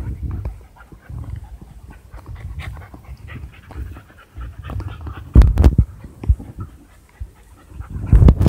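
Dogs panting and scuffling on gravel during rough play between a white boxer puppy and huskies, with scattered short clicks; heavy thumps about five and a half seconds in and again at the very end.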